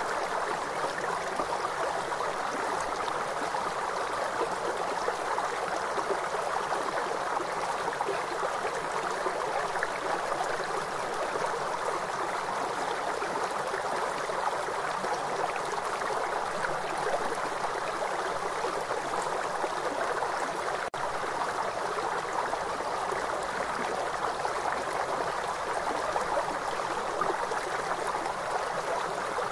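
Rushing river water, a steady even rush of noise, broken by a momentary dropout about two-thirds of the way through.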